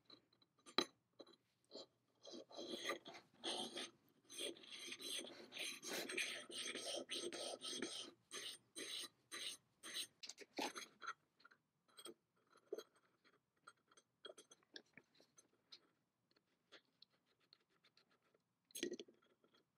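Small metal part rubbed back and forth on a flat metal plate by hand, a run of quick scraping strokes. After about eight seconds it gives way to sparser light scratches and ticks as a pointed hand tool works at the part.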